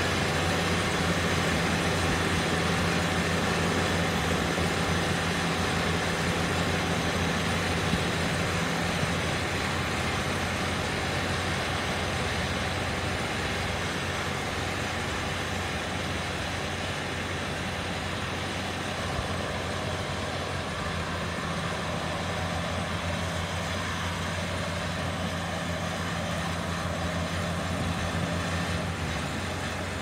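Kubota DR472 four-row, 72-horsepower combine harvester running steadily, a constant engine drone under a broad mechanical whir. A higher note in the hum drops away for about ten seconds midway, then returns.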